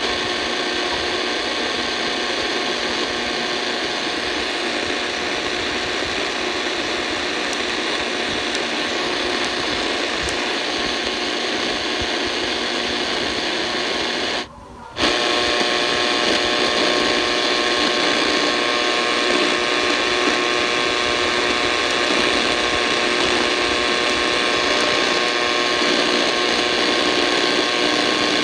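V115 portable AM radio giving out steady static hiss with an interference buzz on empty frequencies at the top of the AM band, with no station coming through. The sound cuts out for about half a second halfway through as the radio is retuned, then comes back slightly louder.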